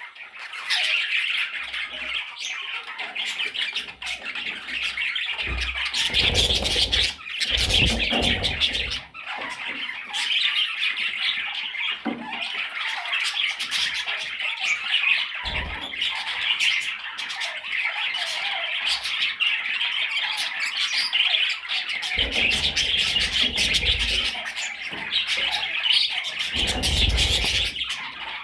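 A flock of budgerigars chattering and squawking continuously. Several brief low rumbles break in partway through.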